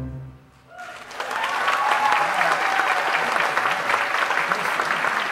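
Theatre audience applauding at the end of a song: after the last note dies away and a brief lull, the clapping starts about a second in and holds at a steady level.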